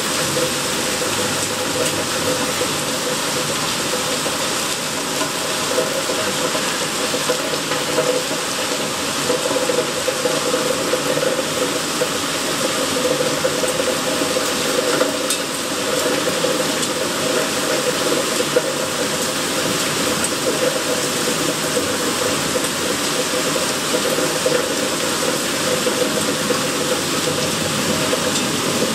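Heavy rain pouring down steadily, a dense, even hiss of falling water.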